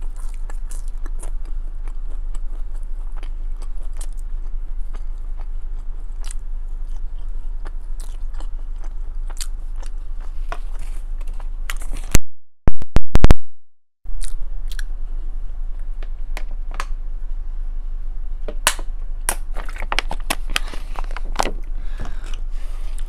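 Close-miked chewing and biting of chili cheese fries and a chili cheese dog, with many short wet mouth clicks over a steady low hum. About twelve seconds in, the sound breaks into a few loud sharp clicks and then cuts out for about two seconds before the chewing resumes.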